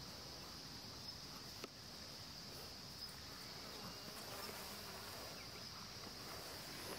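Insect chorus in the mountains: a steady, high-pitched, continuous drone.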